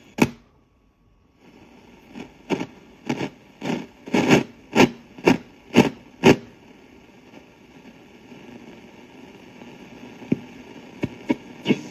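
Radio static from the Sanyo M-X650K boombox's tuner between stations as the band and tuning knobs are turned: a click and a brief drop-out, then hiss with a run of about ten short bursts half a second apart, settling into steady hiss with a few clicks near the end.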